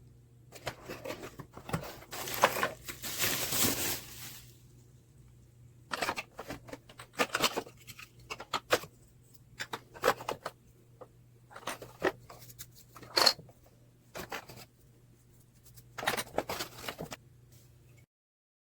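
Packaging being handled and opened by hand: irregular rustling and tearing, with a longer, denser stretch of rustling about two to four seconds in, then scattered clicks and taps.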